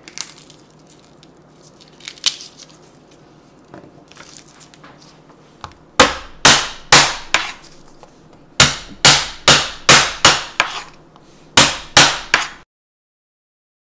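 Chef's knife chopping garlic cloves on a bamboo cutting board: sharp knocks of the blade striking the wood, in three quick runs starting about six seconds in, after faint crackling of garlic skins being peeled. The sound cuts off abruptly near the end.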